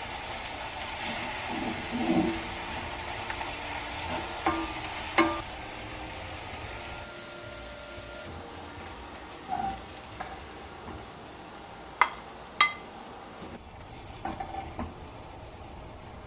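Sliced garlic in a sticky soy-and-syrup glaze sizzling in a cast iron frying pan while a wooden spatula stirs it, with a few sharp knocks of the spatula against the pan. The sizzle dies down about halfway through.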